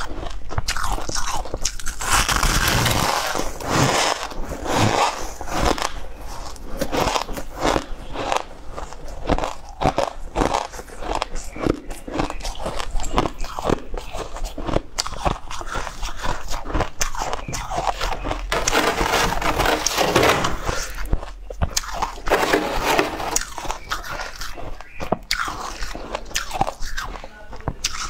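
A person biting into and chewing chunks of frozen purple crushed ice, close to a clip-on microphone: repeated loud crunches and cracking with grinding chewing in between.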